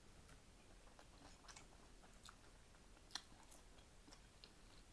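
Faint close-up chewing of a mouthful of cheeseburger, with scattered soft mouth clicks and one sharper click about three seconds in.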